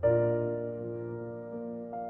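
Soft piano music: a chord struck and held, slowly fading, with a few single notes starting near the end.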